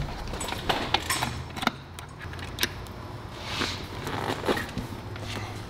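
Scattered small metallic clicks and light clatter as a Harley Sportster's seat and chrome sissy bar are handled and worked loose, over a low steady hum.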